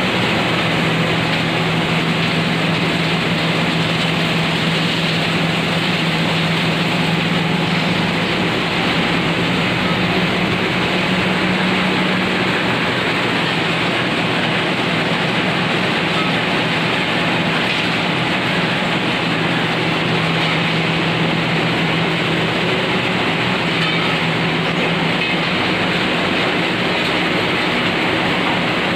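Turmeric grinding machine running steadily: a loud, even mechanical rush with a steady low hum underneath.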